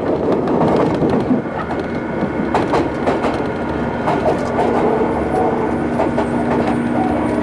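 Interior running sound of a Sotetsu New 7000 series electric train car, with a Hitachi GTO inverter and traction motors, under way: steady wheel and motor rumble carrying a few held motor/inverter tones, with clickety-clack from rail joints passing under the wheels.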